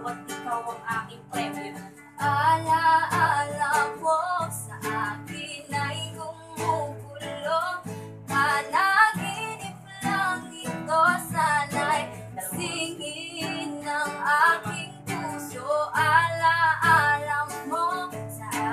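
A girl singing a slow melody with a wavering vibrato, accompanied by a strummed acoustic guitar.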